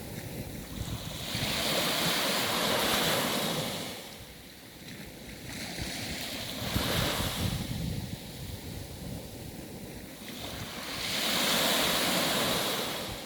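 Sea waves surging and washing in slow swells, three loud surges about four to five seconds apart with quieter wash between.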